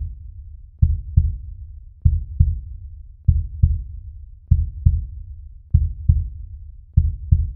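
Heartbeat sound effect: paired low thumps, lub-dub, repeating about every 1.2 seconds over a low hum, six beats in all.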